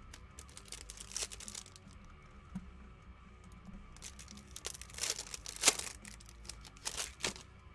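Foil wrapper of a baseball card pack torn open and crinkled by hand, in several short rustling bursts, the loudest about two-thirds of the way through.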